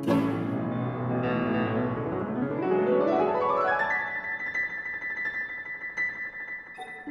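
Classical piano trio music with the piano to the fore. About halfway through, a quick run climbs upward, then a single high note is held for the last few seconds.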